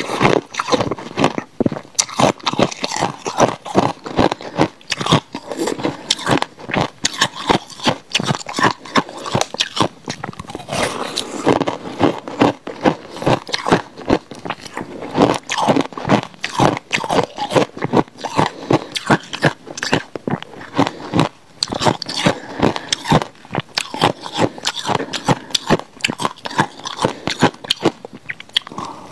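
Blue-dyed ice coated in passion fruit pulp being bitten and chewed: rapid, crackling crunches that keep going with only a couple of brief pauses.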